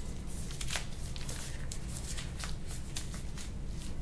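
Quick rubbing strokes over bare skin during soft-tissue work on the shoulder and arm: a run of short, dry swishes, about three or four a second.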